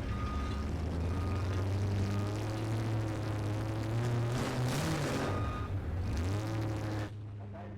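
Off-road competition 4x4 truck engine running, its revs rising and falling a little. The sound drops away abruptly near the end.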